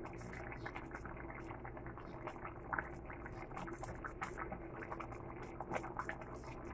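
A pot of fish and vegetable broth simmering on the stove, faint bubbling with scattered small pops and clicks; near the end a wooden spoon stirs through it.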